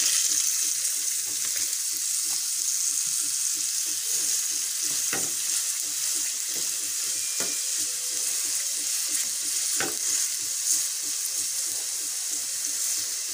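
Minced-meat kabab patty freshly laid in hot oil, sizzling steadily in a nonstick frying pan, with a few sharp pops spread through.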